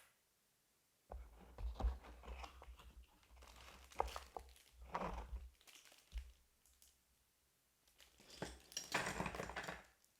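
Packaging being handled and unwrapped: crinkling and rustling with scattered knocks and taps, in two spells separated by a brief pause.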